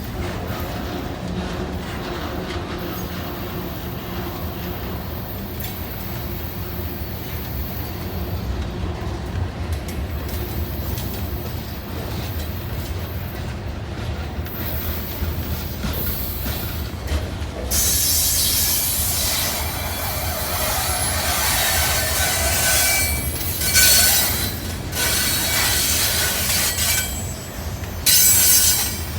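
EMD SD70MAC diesel locomotives drone steadily as a freight train rolls in; after about 18 seconds, loud, high-pitched squealing from the steel wheels on the rails takes over as the train moves on.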